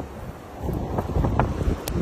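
Storm wind blowing hard and buffeting the microphone in a snowstorm, easing briefly and then gusting back up about half a second in, with a few sharp crackles.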